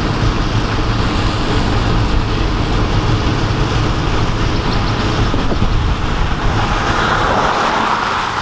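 Steady road and wind noise of a car driving at speed, with a low rumble throughout. A brighter hiss swells near the end.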